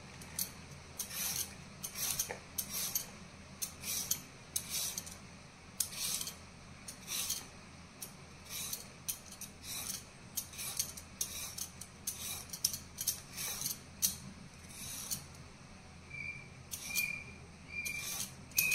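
Steel Y-peeler scraping the skin off a raw carrot in quick repeated strokes, a short rasp with each stroke, about one to two a second. Near the end a series of short high chirps repeats about twice a second.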